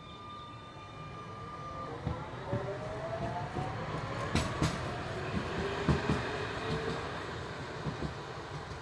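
Croydon Tramlink tram pulling away from the stop, its motor whine rising in pitch as it gathers speed. Several sharp wheel clacks from the track come in pairs about halfway through.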